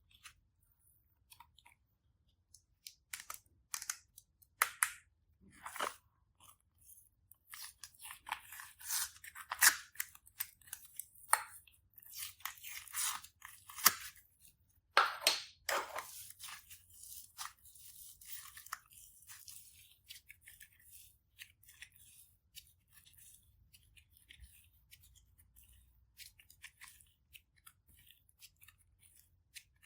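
Hands squishing and kneading slime: irregular sticky crackles and pops, busiest in the middle and thinning out near the end.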